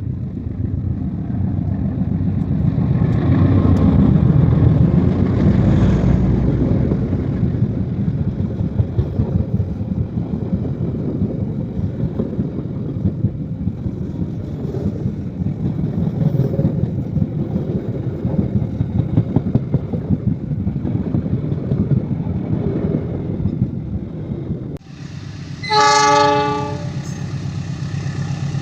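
A train running past close by, a loud steady rumble with rattling wheel clatter. Near the end it breaks off suddenly and a locomotive horn sounds one loud blast of about a second.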